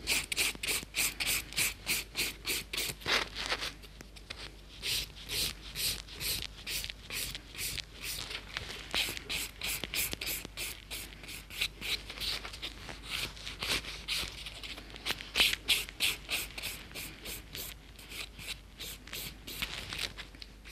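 Hand nail file rasping back and forth across a set acrylic nail in quick, even strokes, about three to four a second, easing off briefly a few times to shape the nail.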